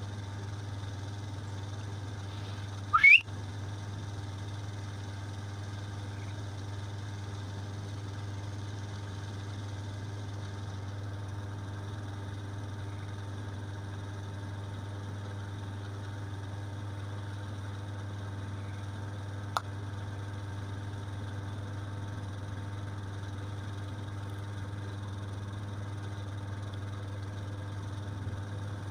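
Steady low machine hum, with one short, loud chirp rising in pitch about three seconds in.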